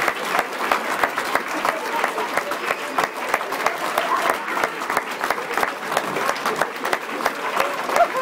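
Live audience applauding steadily, a dense crackle of many hands clapping, with a few voices mixed in.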